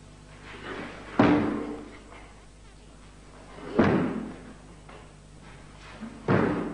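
Three sharp thuds about two and a half seconds apart: bare feet stamping down onto a wooden floor as a karateka steps into a straddle stance during the Shotokan kata Heian Sandan, each with a short rush of gi cloth just before the impact.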